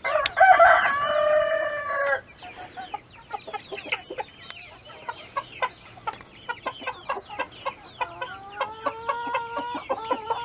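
A rooster crows loud and drawn out for about two seconds at the start, then golden sex link hens cluck in many short, busy calls. Near the end a quieter drawn-out call slowly rises in pitch.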